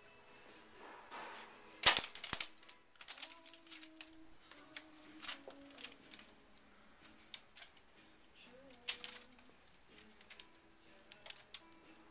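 Scattered sharp clicks and crackles, the loudest a quick cluster about two seconds in, as a cat climbs over a wicker chair, its claws gripping and the wicker crackling under its weight. Faint background music underneath.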